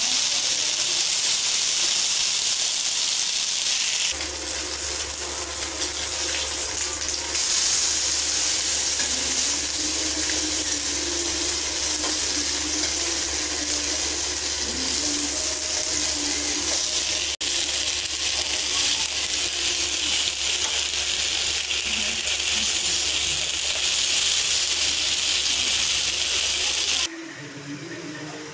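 Marinated fish steaks shallow-frying in hot oil in a pan, a steady crackling sizzle. The sizzle cuts off suddenly near the end.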